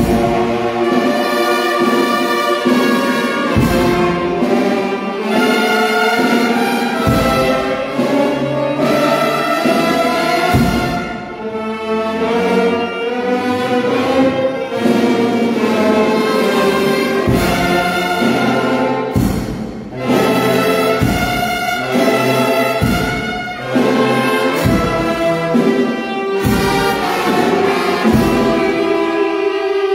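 Live brass band playing a slow procession march, with long held notes and occasional bass drum strokes.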